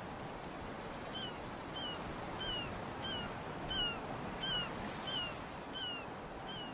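A bird calling over a steady background hiss: a short, thin, falling note repeated about twice a second, beginning about a second in.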